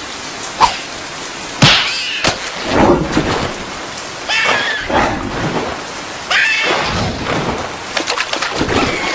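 Cartoon soundtrack of steady heavy rain. Over it come short, high-pitched, wordless character cries and squeals, several times, with scattered sharp clicks. A loud sudden hit comes about one and a half seconds in.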